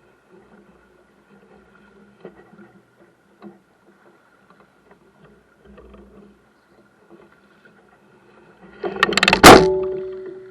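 A loud clatter of knocks near the end, the last one sharpest, leaving a short ringing tone that dies away over about a second, like metal being struck.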